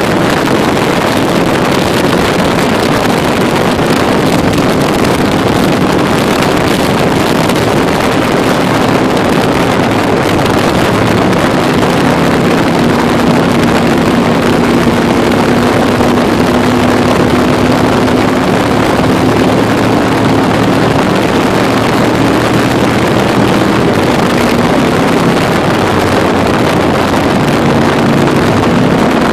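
Can-Am Spyder three-wheeled motorcycle riding at road speed: a steady engine hum under constant wind and road noise on the microphone, the engine note a little stronger in the middle.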